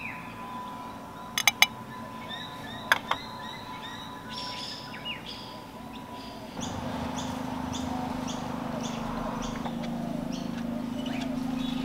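Small birds chirping repeatedly, with a few sharp clicks: three in quick succession about one and a half seconds in and two more about a second later. About two-thirds of the way in, a steady low hum with a rushing background comes in under the chirps.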